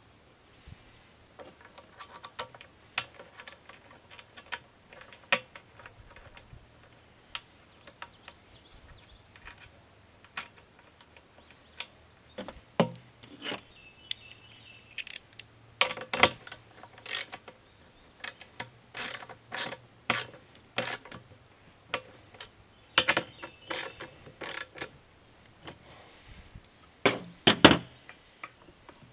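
Small metal hardware (bolts, nuts and brackets) clicking and clinking as it is handled and fitted. The sharp clicks come irregularly, growing denser in clusters from about halfway in, a few with a short metallic ring.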